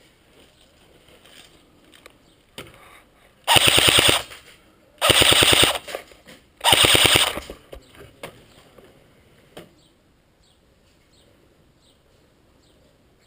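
Airsoft gun firing three short full-auto bursts, each under a second long, with a rapid even rattle of shots. A few single sharp clicks come before and after the bursts.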